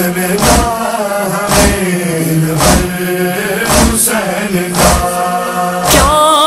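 Noha (Shia lament): male voices hold a wordless chanted drone over a deep, regular thud about once a second. A wavering lead voice begins near the end.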